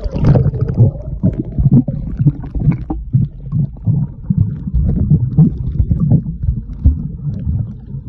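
Muffled water noise picked up by a phone submerged in the sea: low, uneven pulsing and sloshing as the phone moves through the water.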